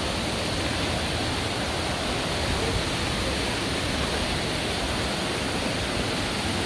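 Waterfall running high: falling water makes a loud, steady, even rush.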